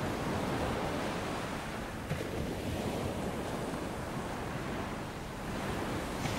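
Sea surf breaking over boulders and washing up a dark volcanic sand beach: a continuous rush of waves.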